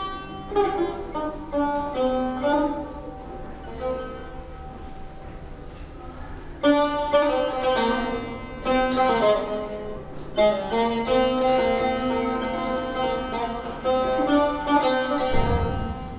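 Persian tar (long-necked plucked lute) playing a melodic passage, with notes plucked singly and in quick runs and short pauses between phrases. There is one deep thump near the end.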